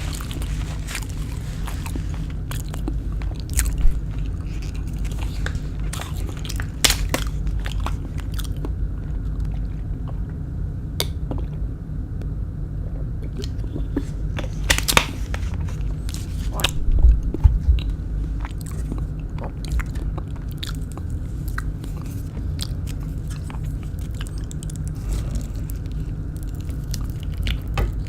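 Close-miked eating: crisp crunching bites and chewing of kwek kwek, deep-fried battered quail eggs, over a steady low hum. The crunches are scattered, with louder bites about four seconds in and again around fifteen to seventeen seconds in.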